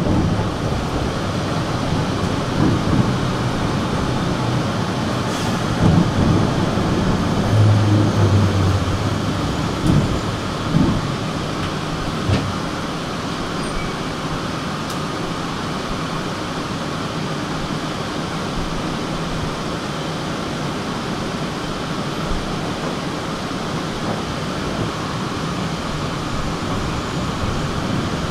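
A tram running on its rails, heard from inside: a steady rumble of wheels and track noise, with several low thumps and knocks in the first half.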